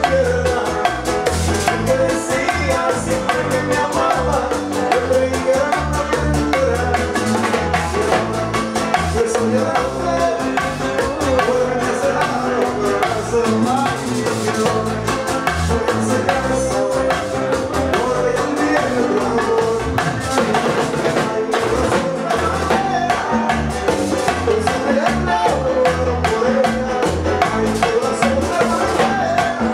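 Live Latin dance band playing, with acoustic guitar, bass and drums keeping a steady dance beat.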